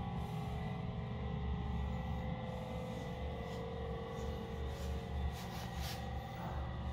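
Background music with held notes over a low, steady hum.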